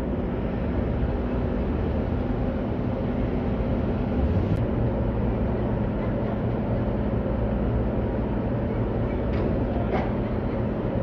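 Steady low rumble with a droning hum from a berthed car ferry's engines and deck machinery, with a few faint ticks.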